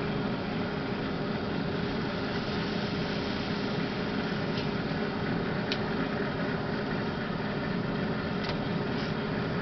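A steady mechanical hum with a low, even pitch, broken only by a few faint sharp clicks in the second half.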